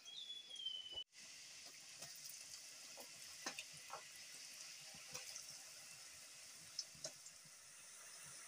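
Potato sticks deep-frying in hot oil in a wok: a faint, steady sizzling hiss with scattered small pops and crackles. A bird chirps once, briefly, at the start.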